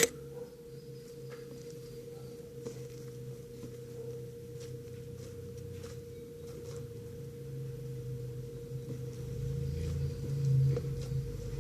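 A steady, pure hum holds one pitch throughout, with a lower hum underneath that starts with a click and swells near the end.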